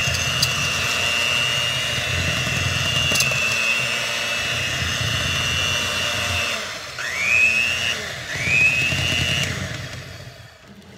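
Electric hand mixer running with a steady high whine as it beats thick brownie batter, with a couple of clicks of the beaters against the plastic bowl. About seven seconds in the motor drops and whines back up twice, then stops near the end.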